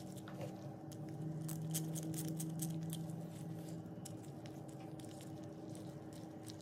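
Small hand ratchet clicking in quick, irregular runs as it tightens a mounting bolt on an LED fog light pod's plastic bracket, mixed with gloved hands handling the parts. A steady low hum sits underneath.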